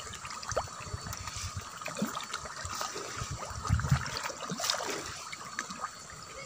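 Common carp and Nile tilapia crowding at the pond surface to feed, making many small splashes and gulps. A few low thumps come just before four seconds in.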